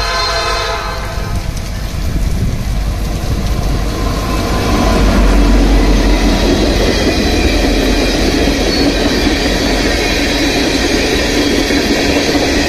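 Norfolk Southern freight train's horn dying away about a second in, then the diesel locomotive passing close with a heavy low rumble that is loudest around the middle, followed by tank cars rolling by, all under heavy rain.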